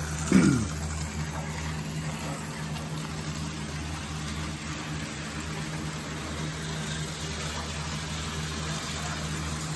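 HO scale Tyco model train running on the layout track, a steady electric motor hum and running noise. A brief voice-like sound falls in pitch just after the start.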